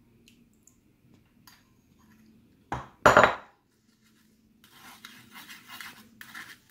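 A metal spoon clatters sharply twice against a wire-mesh sieve and aluminium saucepan about halfway through. Then comes a run of rasping strokes as the spoon scrapes and presses thick jaggery syrup through the mesh, straining out the grit.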